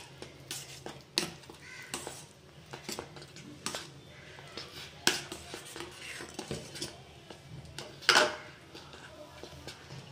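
A steel spoon stirring thick, sticky sweet pongal in a metal pot, with a run of soft scrapes and clinks against the pot. A louder, sharper sound stands out about eight seconds in.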